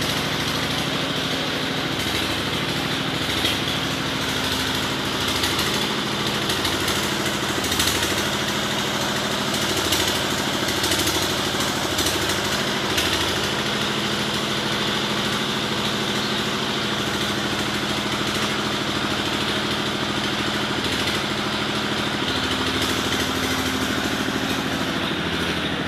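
A small engine idling steadily, its pitch shifting slightly now and then.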